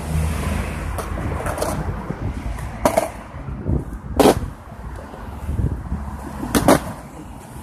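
Skateboard rolling on a concrete sidewalk: a low rumble with about five sharp, irregularly spaced clacks as the wheels cross the slab joints. The rumble fades in the second half as it slows.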